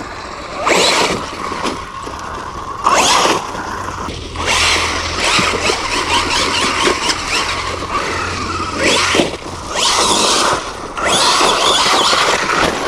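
Losi Super Rock Rey RC truck driving over loose ground: its electric motor whining and its tyres spinning and scrabbling in about six short bursts of throttle.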